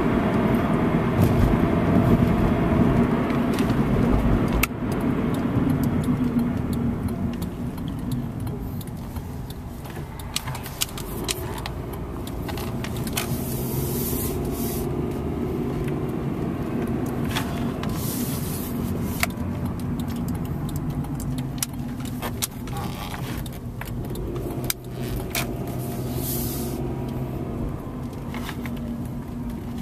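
Cabin sound of a 1998 Honda Accord automatic being driven: engine and road noise, louder for the first four or five seconds, then quieter and steady. Scattered light clicks and jingles run through it.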